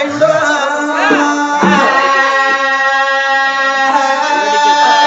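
Sung invocation in Oggu Katha folk-ballad style: a voice sings with palms joined, then holds one long steady note from about two seconds in until near the end.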